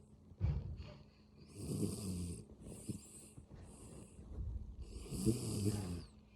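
Snoring in a sleeper: two long, loud buzzing snores about three seconds apart, with shorter breathy puffs of air between them.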